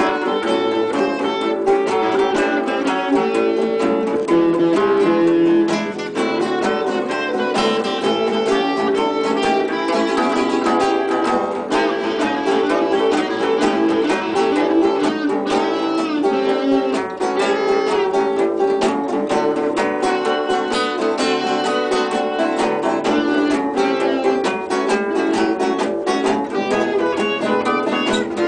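Several guitars played together, a busy, steady stream of plucked and strummed notes.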